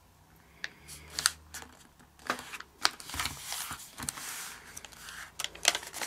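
Origami paper being handled: a pre-creased square turned over, folded diagonally in half and creased down by hand. It gives scattered paper crackles and sharp taps, with a stretch of soft rubbing about halfway through.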